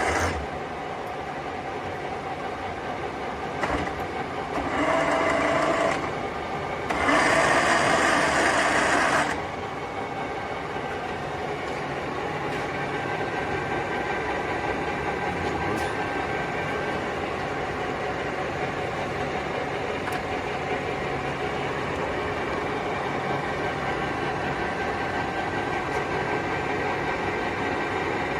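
Large Timemaster gap bed engine lathe running under power, with a steady gear-drive hum. Twice, about five and about eight seconds in, a louder surge lasts a couple of seconds, fitting the carriage's rapid traverse being engaged.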